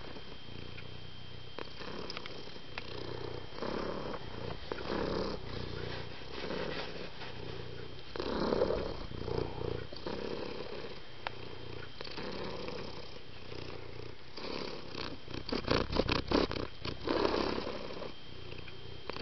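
Black domestic cat purring close to the microphone, the purr swelling and fading with each breath about once a second. Near the end comes a brief run of quick rustling clicks.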